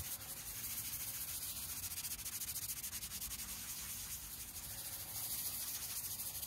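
220-grit sandpaper on a hand sanding block rubbed quickly back and forth over a Blackstone griddle's steel cooking surface, a steady high hiss. This is the final fine-grit pass, smoothing the bare metal after the factory seasoning has been sanded off.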